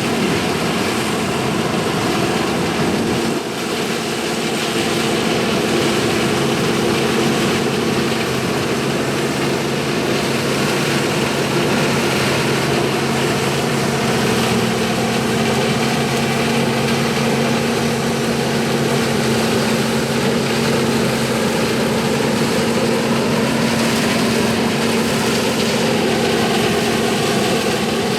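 1982 John Deere 4420 combine's 359 cubic-inch six-cylinder diesel running steadily under load while harvesting soybeans, a constant hum over broad machinery noise, with a brief dip in level about three seconds in.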